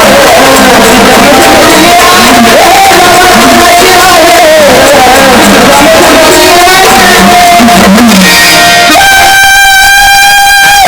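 Loud live Marathi gondhal folk singing with musical accompaniment, the voice wavering up and down. Near the end the singing gives way to a single steady, held tone.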